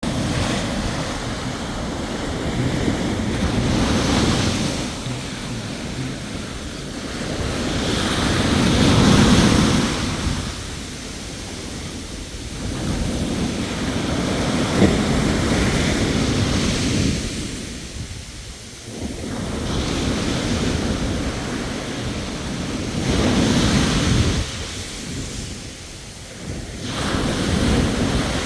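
Sea waves breaking and washing onto the shore, swelling and falling back every few seconds.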